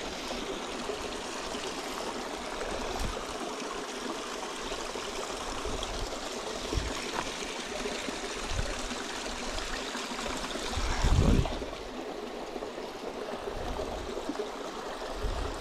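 Small stream running steadily into a shallow stone-walled pool, a continuous trickle of water. A brief low thump about eleven seconds in.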